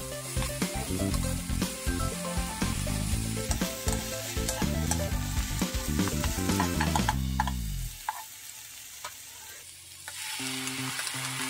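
Fish cake strips and sliced vegetables sizzling in a frying pan while being stirred with spatulas that click and scrape against the pan. Near the end a seasoning sauce is poured in and the sizzle grows stronger. A light background music tune plays under it, dropping out for about two seconds before coming back.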